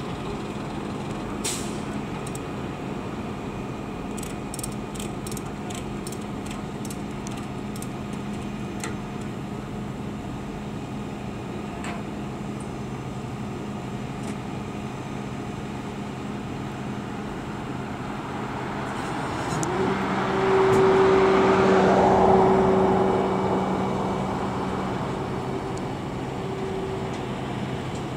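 Roadside traffic with a steady low engine hum. About twenty seconds in, a heavy vehicle, bus or truck, passes close by: it gets louder with a steady engine tone, then fades.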